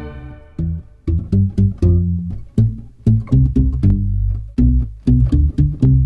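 Background music: a held string chord fades out, then plucked guitar notes over a low bass begin about half a second in, one short note after another.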